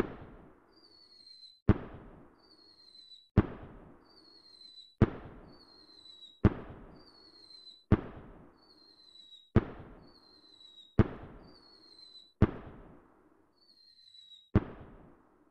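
Fireworks going off in a regular series: each shot is a short falling whistle followed by a sharp bang and a crackling tail, about one every one and a half seconds, ten in all.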